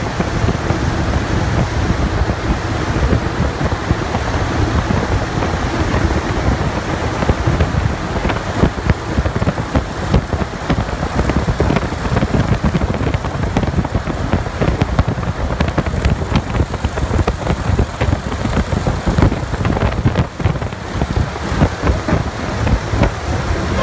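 Boeing B-29 Superfortress's four Wright R-3350 radial engines and rushing air, heard from inside the fuselage at a gunner's window on approach to landing: a loud, steady, deep drone.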